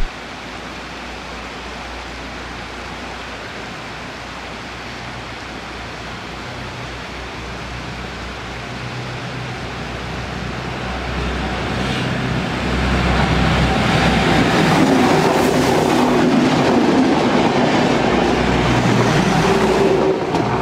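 Three-car diesel railbus approaching and running past close by. Its engine and rail noise grows steadily louder over about ten seconds, then stays loud as it goes past.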